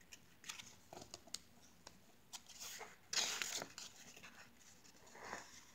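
A picture book's paper page being turned by hand: faint rustles and small taps, with a short swish about three seconds in as the page goes over.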